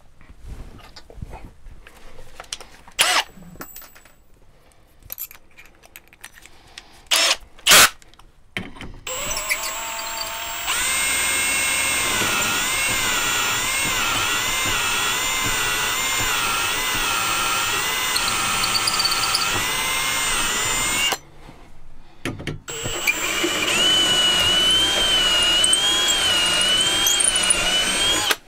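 Cordless drill boring holes for the fridge's mounting screws. A few knocks and clicks come first. Then the drill runs for about twelve seconds, its whine wavering as the bit cuts, stops briefly, and runs again for about five seconds.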